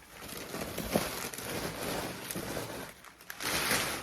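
Newspaper packing stuffing crinkling and rustling as it is handled, with a sharp crackle about a second in and louder rustling near the end.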